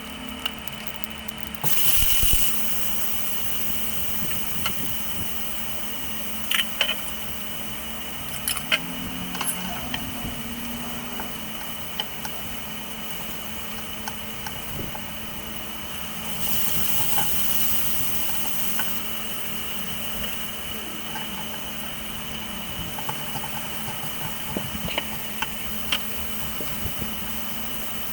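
Steady machine hum, with a few sharp clicks and two short stretches of louder hiss.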